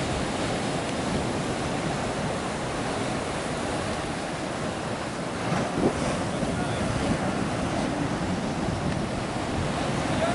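Ocean surf breaking on a beach: a steady rush of waves and whitewater, with wind on the microphone and a brief louder burst about six seconds in.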